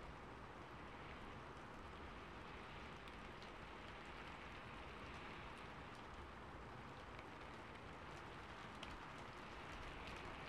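Faint steady hiss with no distinct events, a few tiny ticks scattered through it.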